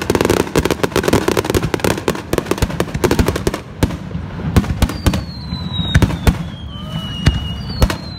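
Fireworks display: aerial shells bursting in a dense crackling volley for the first few seconds, then separate booms. Two long falling whistles come in the second half.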